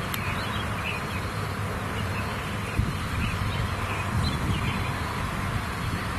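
Steady insect buzzing with scattered faint high chirps, over a low steady rumble.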